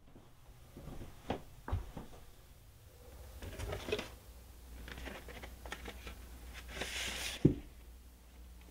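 Hands handling vinyl LPs and their cardboard sleeves: scattered light knocks and rustles of card. About seven seconds in there is a longer sliding rustle as a record comes out of its sleeve, then a sharp knock, the loudest sound.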